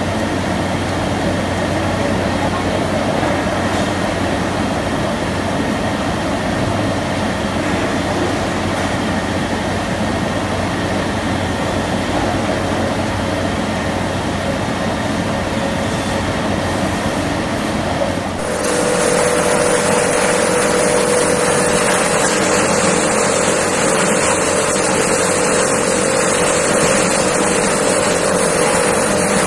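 Industrial coating, breading and frying line running: steady machinery noise with a low hum as the mesh belt conveyor carries breaded products. About two-thirds of the way through it changes suddenly to a louder hiss with a steady mid-pitched tone, from another machine of the line.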